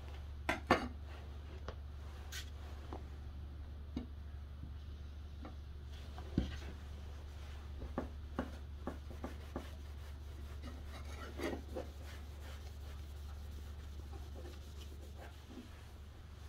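A cloth rubbing and wiping over the steel blade of a square, cleaver-style kitchen knife, with scattered light clicks and taps as the knife and hands move against a steel workbench. A steady low hum runs underneath.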